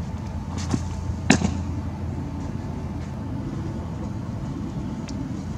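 A thrown baseball, a changeup, smacking into the catcher's leather mitt once, a sharp pop about a second and a half in, with a couple of fainter knocks just before it. A steady low rumble runs underneath.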